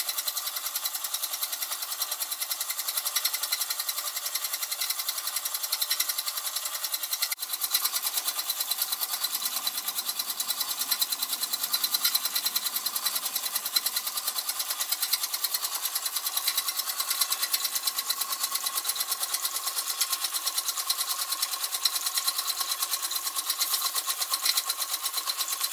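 A Mamod TE1a toy live-steam traction engine running fast: its oscillating steam cylinder gives a rapid, even chuff-and-clatter of exhaust beats. The sound breaks briefly about seven seconds in, and a steady high tone grows through the second half.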